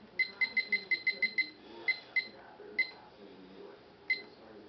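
Short sharp metallic clicks from a water stone on an Edge Pro sharpener striking a knife blade during sharpening strokes, each with a brief high ringing ping. There is a quick run of about eight in the first second and a half, then four more spaced further apart.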